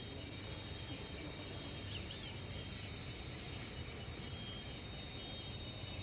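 Outdoor ambience: a steady high-pitched insect drone over low background noise, with a few faint bird chirps about two seconds in.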